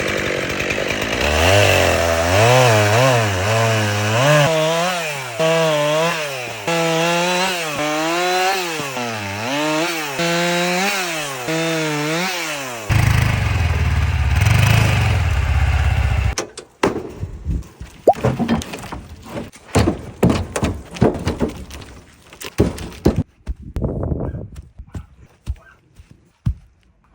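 Husqvarna chainsaw cutting a log, its engine revving up and down again and again, then running steadily before stopping about sixteen seconds in. After that come scattered knocks and clatters.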